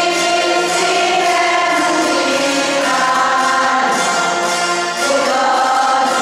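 A choir of older women singing, holding long notes that change every second or two.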